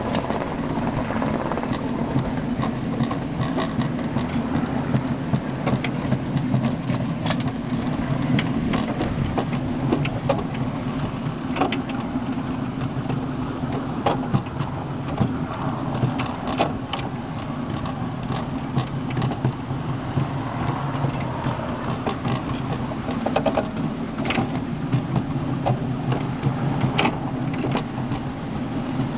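Miniature live-steam locomotive and its passenger truck running along a narrow-gauge garden railway: a steady low rumble of wheels on the rails with scattered irregular clicks and knocks over the track.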